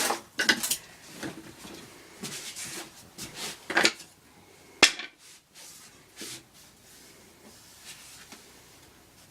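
Scattered light knocks and clicks of hand work on a window installation, with a sharp click about five seconds in, growing sparser toward the end.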